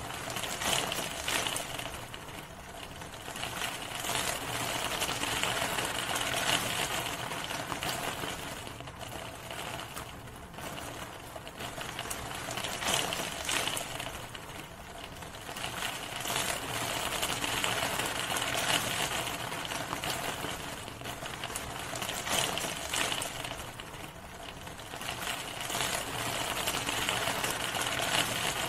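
Steady rain: a dense hiss of many small drops hitting, swelling and easing every five seconds or so.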